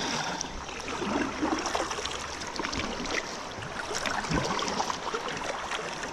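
River water flowing and splashing around a kayak, with a couple of dull knocks about three and four seconds in.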